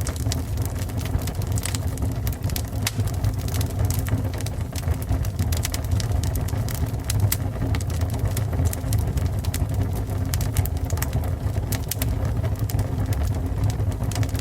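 Fire burning: a steady low rumble of flames with many sharp crackles and pops scattered irregularly throughout.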